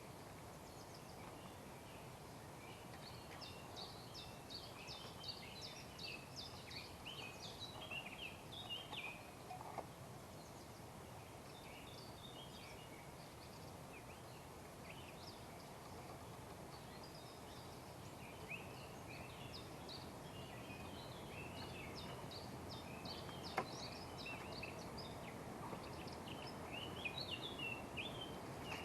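Small birds chirping and twittering in many short calls, busiest early on and again near the end, over a steady outdoor background hiss. A single sharp knock comes about two-thirds of the way through.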